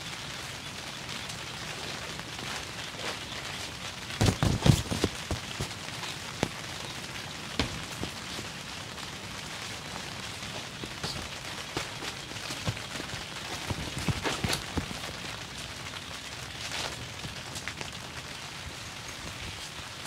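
Steady rain falling, with scattered drops clicking on nearby surfaces. There is a louder cluster of knocks about four seconds in and another short one near the middle.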